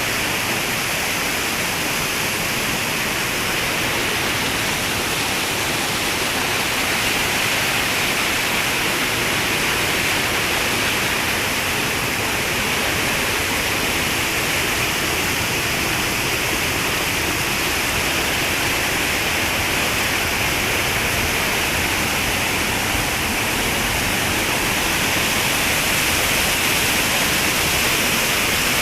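Flowing water rushing steadily, a stream or small waterfall, with an even hiss strongest in the upper-middle range.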